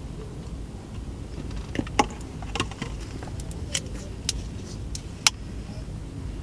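Scattered sharp clicks and light rattles of small objects being handled, about ten of them, the sharpest a little past five seconds in, over a low steady rumble.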